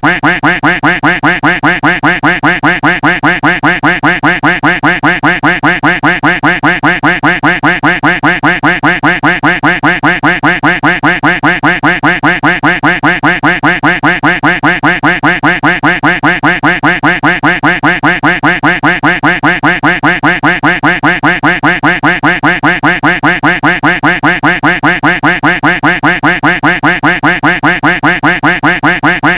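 Duck quack sound effect looped nonstop, the same quack repeated evenly several times a second.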